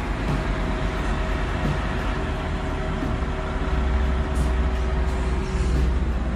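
A large engine running steadily with a low rumble, which grows a little stronger in the second half.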